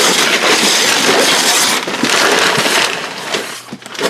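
Glossy pink gift-wrapping paper being torn and ripped off a large cardboard box: loud, continuous tearing and crinkling that thins out to scattered crinkles near the end.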